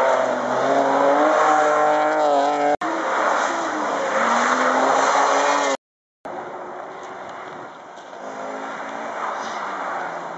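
Rally cars passing at speed one after another, engines revving hard, their pitch rising and falling as each car goes by. The sound breaks off abruptly about three seconds in and again just before halfway, with a brief silence at the second break.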